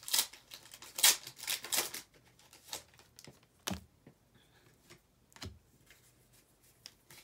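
Foil Pokémon booster pack wrapper crinkling and tearing open, in dense bursts over the first two seconds. Two soft thumps and a few light clicks follow.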